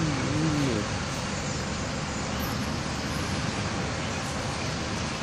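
Steady road-traffic noise from a busy avenue of cars and buses, an even rush of passing vehicles. A short wavering hum is heard in the first second.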